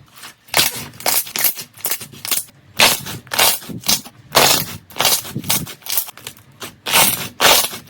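Iceberg slime being squeezed and pressed by hand, its hardened crust crunching and crackling in quick, repeated bursts, about two or three a second.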